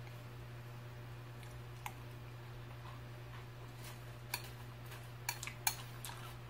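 Faint, scattered light clicks of a metal spoon against a ceramic cereal bowl as spoonfuls of cereal in milk are scooped, a few of them close together in the second half, over a steady low hum.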